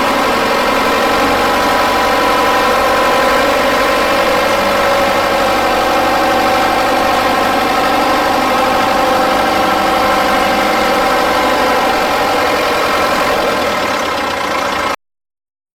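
1970 Ford County Forward Control 4WD tractor's diesel engine running steadily at an even, idle-like speed, with no revving. The sound cuts off abruptly near the end.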